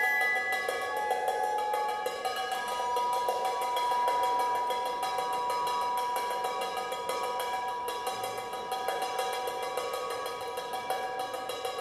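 Drum kit played with extended technique in free improvisation: several ringing tones sustained together over a fast, dense rattle of small strikes on the drums.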